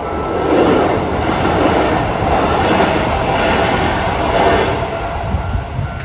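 A Keisei Kanamachi Line train passing over a level crossing, its wheels clattering on the rails. The noise builds about half a second in and eases off near the end.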